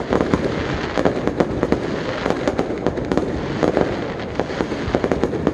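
Fireworks display: aerial shells bursting in quick succession, a dense run of bangs over continuous crackling.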